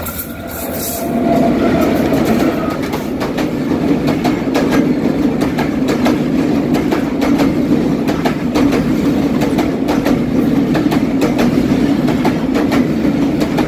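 A diesel-hauled passenger train passes close by over a steel girder bridge. The locomotive grows louder and passes about a second in, then the coaches keep up a steady heavy rumble with repeated clacks of the wheels over the rail joints.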